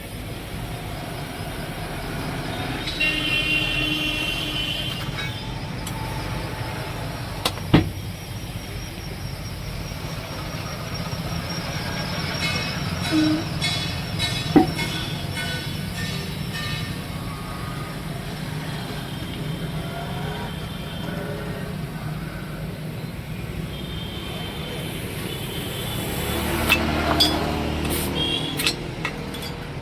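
Motor vehicles running and passing by, with two sharp knocks, one about eight seconds in and one about halfway, and a louder stretch near the end.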